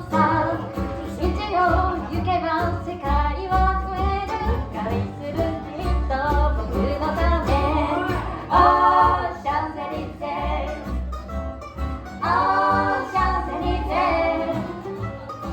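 Bluegrass band playing an upbeat song live, with singing over acoustic string instruments and a pulsing bass.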